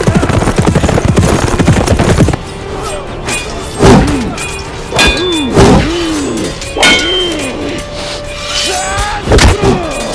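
Horses' hooves galloping in a rapid run of strokes for the first couple of seconds, then a sword fight: a string of sharp hits, some leaving a ringing metal clang, with men's short shouts, over dramatic orchestral music.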